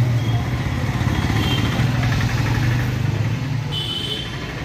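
Street traffic: a motor vehicle engine running close by with a steady low hum that eases off after about three and a half seconds. Brief high-pitched tones come near the end.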